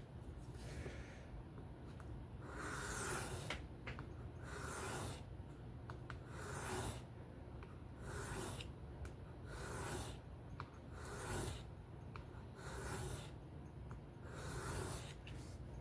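Folding knife blade drawn across a whetstone in freehand sharpening strokes, a rasping scrape about every two seconds, about nine in all, working the second side to take off the burr.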